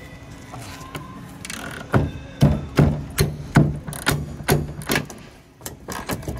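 A quick run of about eight sharp metal knocks, each with a short low ring, starting about two seconds in, from tools working a bumper-corner bolt on a semi truck's frame. Scattered knocks and clicks follow.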